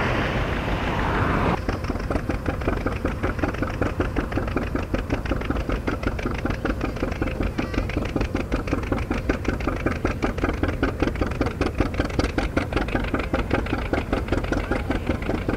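Two-cylinder John Deere tractor engine working under load while pulling a plow, its exhaust a rapid, even string of pops: the unmistakable John Deere sound. It is preceded for the first second and a half by a louder rushing noise.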